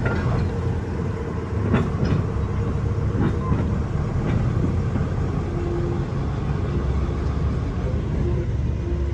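Small diesel shunting locomotive's engine running with a steady low rumble as it pulls an open goods wagon along the track, with a few clanks from the wagon and wheels about two and three seconds in.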